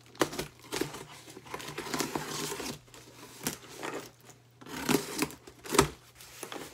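Packing tape on a cardboard shipping box being slit and torn off, with scraping and tearing strokes, then the cardboard flaps pulled open with two louder thumps near the end.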